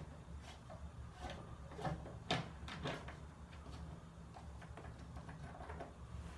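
Scattered light knocks and clicks of an old wooden screen door's removable panel and its small screws being handled, the sharpest knock a little over two seconds in, over a low steady hum.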